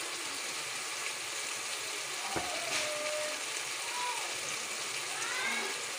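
Red tomato-and-ketchup sauce sizzling and bubbling in a steel wok, a steady hiss.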